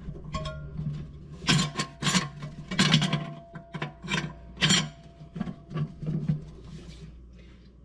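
Clutch steels and friction plates of a 200-4R transmission's low-reverse clutch pack being worked down into the case by hand: a run of metal scrapes and clinks as the plates' tabs slide along the case slots, with a light metallic ring after some of them. It dies away about six and a half seconds in.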